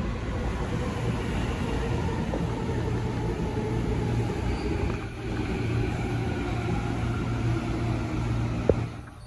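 CAF Série 7000 electric multiple-unit train running along the station track: a steady rumble with a low motor hum and faint drifting tones. A sharp click comes near the end.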